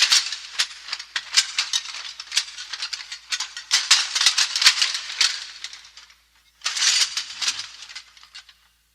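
Plate armor clanking: steel plates rattling and clinking against each other in a continuous jangle. It stops briefly about six seconds in, then a shorter burst follows and fades out.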